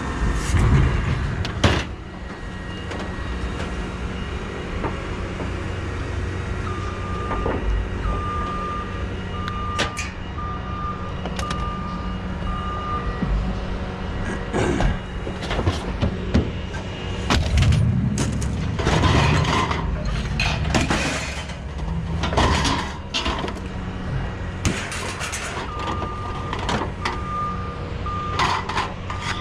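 An idling vehicle engine hums steadily while a reversing alarm beeps about once a second, in two spells. Scattered knocks and clatter come through, heaviest in the middle.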